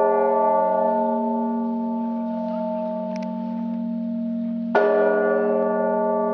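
A large church bell struck once about five seconds in, while the previous stroke is still ringing; each stroke hangs on as a long, slowly fading hum of several steady tones.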